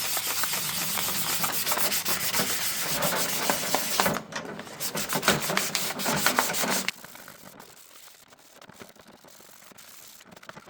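320-grit sandpaper rubbing back and forth over a plastic headlight surround in quick strokes, scuffing the surface to give paint a grip. The sanding pauses briefly about four seconds in, resumes, and stops about seven seconds in.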